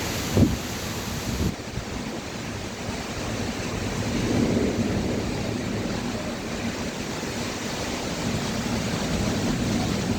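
Heavy rain falling as a steady hiss, with a brief knock about half a second in and a low rumble swelling near the middle.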